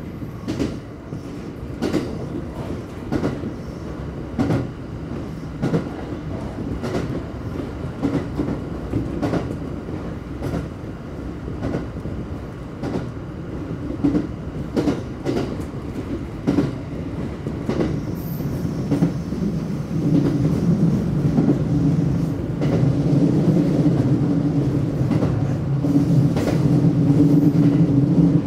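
JR West 227 series electric train running along the line, its wheels clicking over rail joints about once a second. From about two-thirds of the way through, a steady low hum grows louder.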